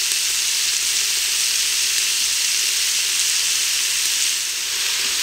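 Sliced mushrooms and onions sizzling steadily in oil in the stainless steel inner pot of an Instant Pot on its sauté setting.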